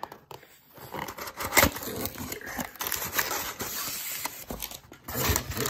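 Cardboard Priority Mail box being torn open and the paper packing inside crinkling as the contents are pulled out. It makes irregular rustling with sharp crackles.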